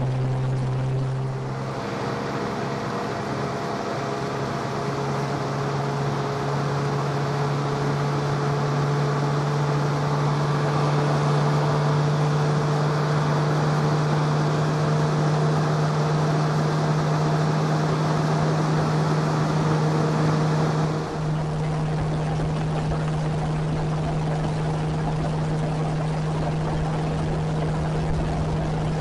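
Johnson 9.5 hp two-stroke outboard running under throttle, pushing a 12-foot jon boat up onto plane, with water rushing along the hull. The engine note rises about two seconds in and then holds steady. About twenty seconds in, the rushing hiss drops away suddenly while the engine carries on.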